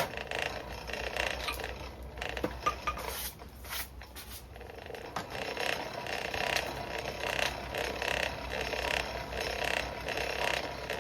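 Coal forge blower running, a steady mechanical whir with an even pulsing rhythm as it drives air into the fire pot.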